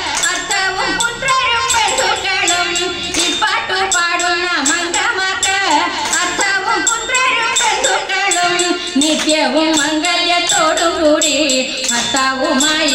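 Women's voices singing a Thiruvathira song in Malayalam through a sound system, with the dancers' hand claps keeping a steady beat under the melody.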